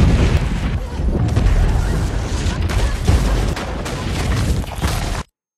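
A sudden, loud, rumbling crash of a cave-in, with a dense rattle of rock and debris falling. It cuts off abruptly about five seconds in.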